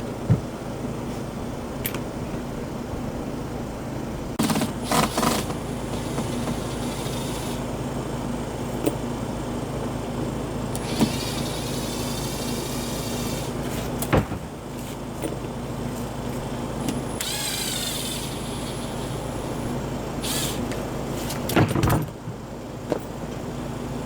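Old deck boards being pulled up: a few sharp knocks and bangs, and twice a high squealing lasting a couple of seconds, over a steady low hum.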